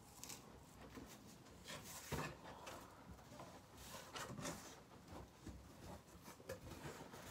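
Faint rustling and scraping of a cardboard shipping box being opened by hand, its flaps pulled back, with a sharper knock about two seconds in.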